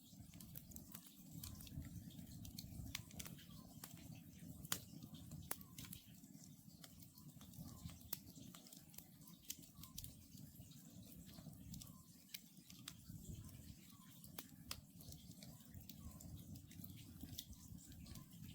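Wood campfire crackling, with frequent sharp pops and snaps. Faint short calls of a distant Oriental scops owl repeat every second or two.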